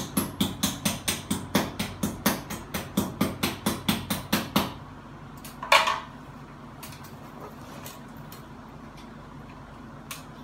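Rapid hammer blows at the ceiling, about four a second, stopping about four and a half seconds in. A single louder clank with a short ring follows, then a few faint clicks.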